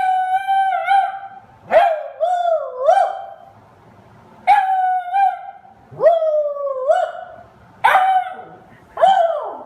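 A beagle baying: about six drawn-out calls, each up to about a second long, with a pitch that wavers and bends, separated by short pauses.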